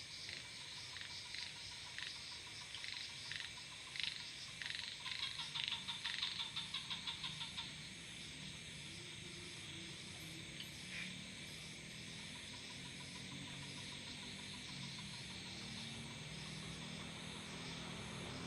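Frogs calling at night: a series of sharp, clicking calls that speed up into a quick run about five seconds in, over a steady insect chorus.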